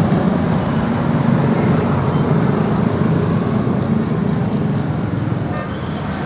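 Steady road-traffic and street noise of a busy open-air market, with vehicle engines running.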